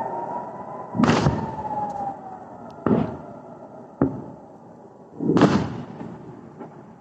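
A civil-defence air-raid siren's wail falls and fades out over the first two seconds, while four booms ring out across the city, each with a rolling echo. They are distant explosions during a rocket-attack alert, and the first and last are the loudest.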